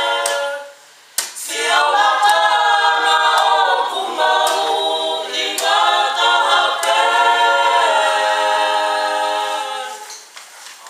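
A small group of women singing a cappella in harmony. The voices break off briefly about a second in, resume, and fade out near the end.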